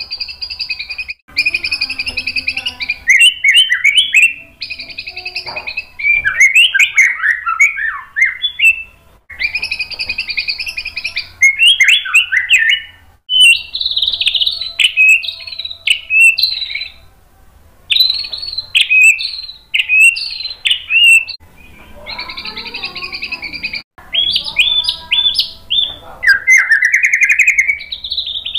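Male white-rumped shama singing loudly and at length, in a varied song of buzzy trills and quick up-and-down whistled sweeps. The phrases come in bursts of one to three seconds with short pauses between.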